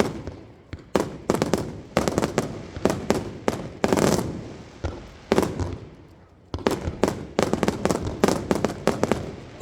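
Fireworks display: aerial shells bursting in rapid succession, each bang trailing off, with a short lull about two-thirds of the way through before another dense volley of bursts.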